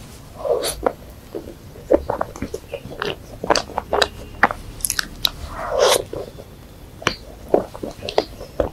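Close-miked eating sounds: biting into and chewing a soft cream-filled pastry, with many sharp crackly crunches and wet mouth smacks, and a louder squelchy mouthful about half a second in and again near six seconds.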